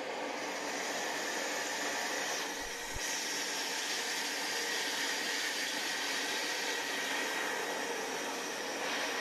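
Paper tube cutting machine running, its belt-driven circular cutter working on a large paper drum as the drum turns on steel rollers. A steady noise with a faint high whine, dipping briefly about three seconds in.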